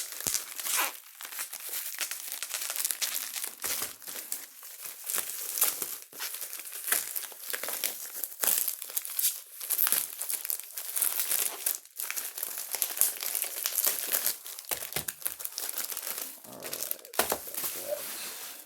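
Plastic packaging being crinkled and torn open by hand, a continuous run of crackling and tearing as the tightly taped, protectively wrapped package is pulled apart.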